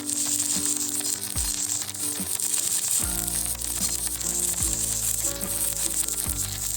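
Background music with held notes and deep falling bass drops, over a steady high crackle typical of an electric welding arc burning.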